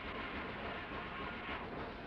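Steam-powered sawmill machinery running steadily, a dense mechanical noise on an old, dull-sounding tape recording, with a brief brighter rasp near the end.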